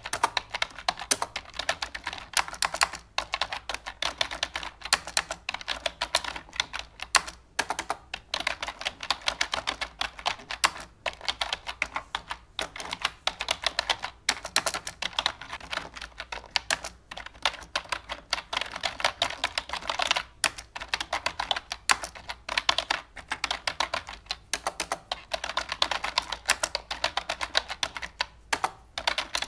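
Fast, continuous clicking like typing on a keyboard, many keystrokes a second with only brief pauses.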